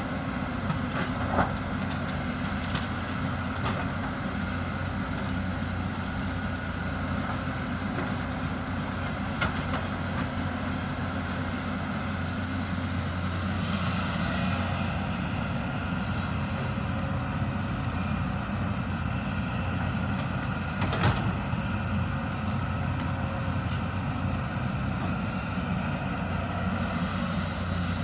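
Hyundai 220 crawler excavator's diesel engine running steadily as it works, with a few sharp knocks, one just after the start and one about three quarters of the way through.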